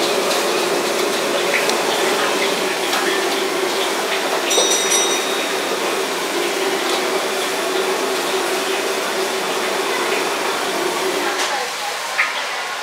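Gas wok burner running steadily under a very hot wok as sauce sizzles, with a few knocks and a brief ring from the metal ladle against the wok. The steady burner noise drops shortly before the end.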